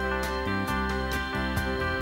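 Live band music: electric guitars playing an instrumental passage over a steady beat of about two strokes a second.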